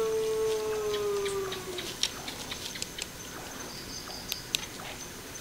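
A long, dog-like howl held on one steady pitch, sagging slightly as it fades out about two seconds in. A few faint ticks follow.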